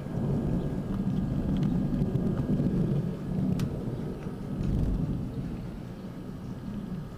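Thunder rumbling low and rolling, swelling about a second in and again near five seconds.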